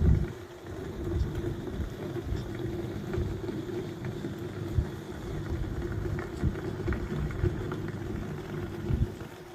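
Breeze blowing over a phone microphone, buffeting in uneven low gusts, with a steady low hum underneath.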